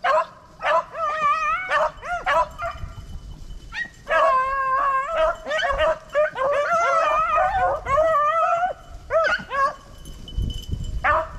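A pack of beagles baying as they run a rabbit. There are short single bays at first, then from about four seconds in several dogs' voices overlap in a chorus before it thins out again near the end.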